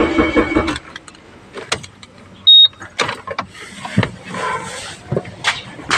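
A car's starter cranking the engine without it catching, cutting off under a second in. About two and a half seconds in there is a very short, loud high-pitched beep, followed by scattered clicks and knocks.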